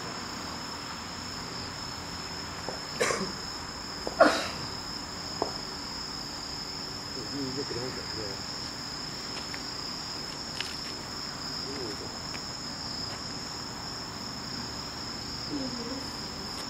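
Steady high-pitched chirring of insects such as crickets in grass. Two short, louder sounds cut in about three and four seconds in, the second the loudest.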